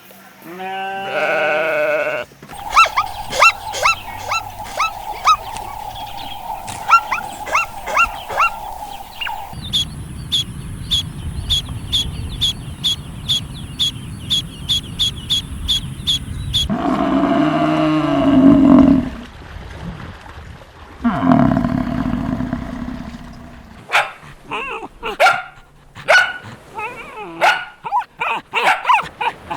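A run of different farm-animal sounds cut one after another: series of short repeated calls with barking, a fast even series of sharp ticks in the middle lasting about seven seconds, then longer pitched bleating calls about two-thirds of the way through, followed by scattered short calls.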